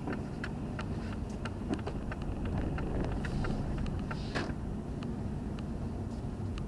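Car rumbling slowly at low speed, heard from inside the cabin, with a turn signal ticking about three times a second as the car turns in; the ticking stops about five seconds in.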